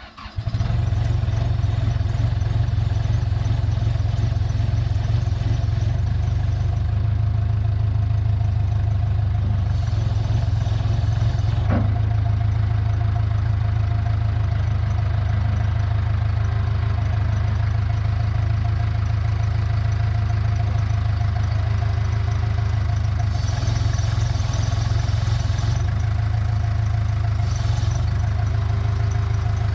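1987 Case 580K loader-backhoe's diesel engine idling steadily, with a hiss from the hydraulic backhoe control valve area over it. The constant hiss comes with a parasitic load on the engine and is a hydraulic fault whose cause is not yet found. One brief click about twelve seconds in.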